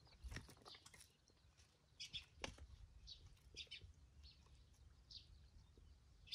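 Near silence with faint, scattered bird chirps.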